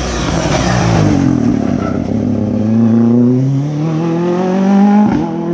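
Rally car engine running hard as the car passes. Its note drops about a second in, then climbs steadily as it accelerates away, with a quick gearshift near the end.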